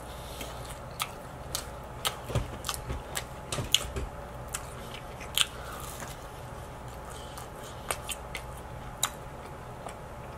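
Close-up chewing and biting of pizza, with sharp crunchy clicks coming at irregular intervals and thickest between about two and four seconds in, over a low steady hum.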